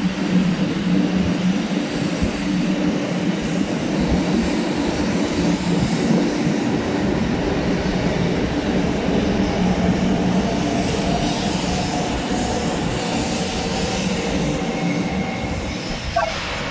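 JR West 500 series Shinkansen pulling out of the station: a steady rumble of the train with a constant hum, and a faint whine that rises in pitch through the second half as the train picks up speed.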